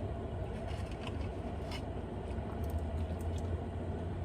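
A person eating fried chicken, with a few faint crunchy clicks of chewing over a steady low hum.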